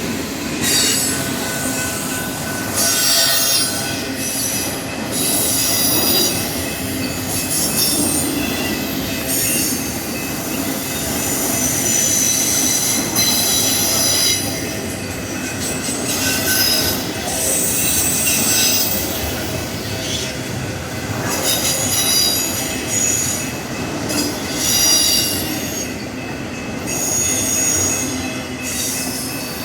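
Union Pacific auto rack freight train rolling past, a steady rumble of steel wheels on rail with high-pitched wheel squeals that come and go.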